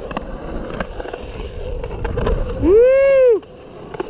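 Skateboard wheels rolling over the concrete of a skate park bowl, with a few sharp clacks. About two and a half seconds in comes a loud pitched sound, under a second long, that rises and then falls in pitch.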